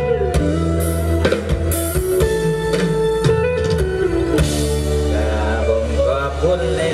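Live Thai Isan band music played loud through a stage PA: drums keeping a steady beat under sustained guitar and keyboard-like notes, with a wavering melody line near the end.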